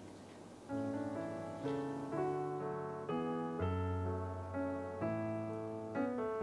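Piano music begins under a second in, a string of single notes and chords. Before it, a faint trickle of green tea being poured into a porcelain cup.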